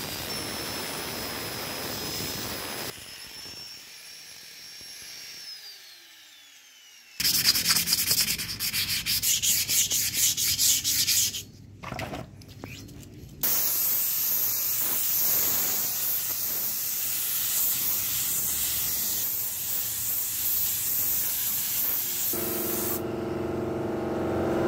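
Electric angle grinder with a wire cup brush whining steadily as it strips rust and paint from a steel bicycle frame part, then spinning down. Then loud, rhythmic rubbing of abrasive on bare steel tubing. Then a long, steady spray-painting hiss.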